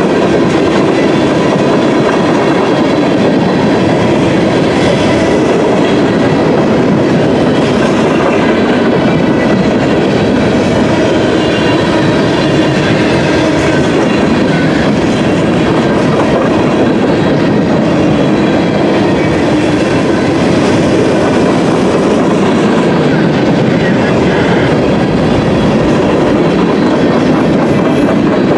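Freight train's tank cars and covered hoppers rolling past: steel wheels clacking and rumbling on the rails, loud and steady, with faint thin high tones ringing above the rumble.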